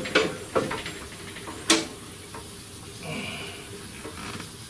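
Scattered metallic clicks and knocks as a front CV axle is worked into the transmission, with one sharp click about two seconds in.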